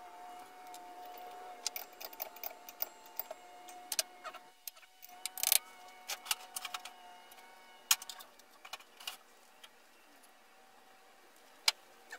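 Small metal clicks and clinks, scattered and irregular, of brass air-hose fittings and hand tools being handled and set down on a wooden workbench. A faint steady tone runs underneath and stops about seven seconds in.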